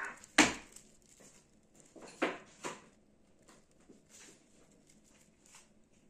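Handling sounds from a wicker basket lined with dry straw: a sharp knock about half a second in, two crackling knocks a little after two seconds, then a few faint ticks.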